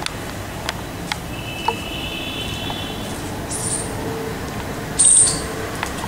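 Outdoor ambience: a steady low background hum, with a few short high-pitched chirps, the loudest about five seconds in, and scattered faint ticks.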